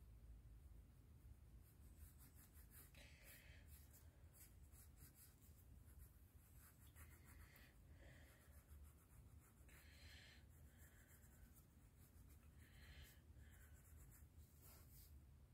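Faint scratching of a pencil sketching on notebook paper, in short irregular strokes.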